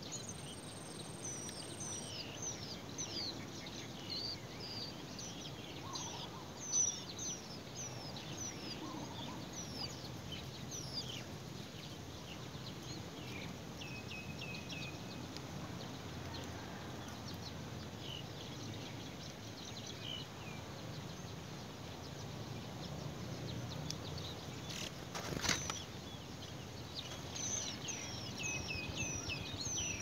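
Songbird nestlings begging at the nest: many thin, high, falling chirps in rapid flurries near the start and again near the end, with sparser chirps between. A single sharp click comes late on.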